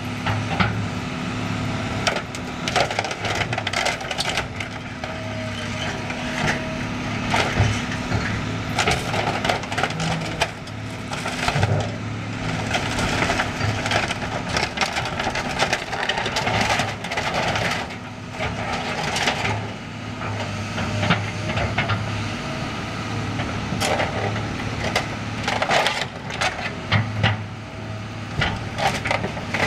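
Excavator bucket and hydraulic thumb tearing into a building's metal roof: repeated cracking and crunching of roof panels and the structure beneath, over the excavator's diesel engine running steadily.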